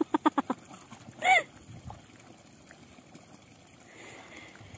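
A man laughs in a quick run of short 'ha-ha' sounds, then gives one short exclamation about a second later. Under it, a faint steady trickle of water running from the bank into a pond.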